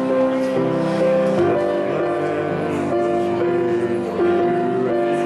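Church postlude music on a keyboard instrument: slow, sustained chords that change about once a second.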